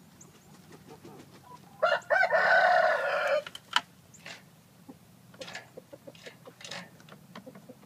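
A rooster crows once, about two seconds in, in a single call lasting about a second and a half. Short clucks and calls from the tethered roosters follow.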